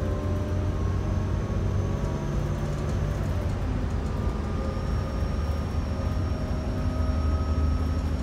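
2008 New Flyer C40LFR natural-gas transit bus driving, heard from inside the passenger cabin: a steady low engine drone with a whine whose pitch shifts a few seconds in.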